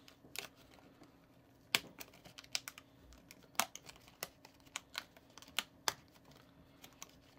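Light, irregular plastic clicks and taps from a card of molded plastic fishing hooks being handled, fingers working at the hooks to free one, the sharpest click about two seconds in.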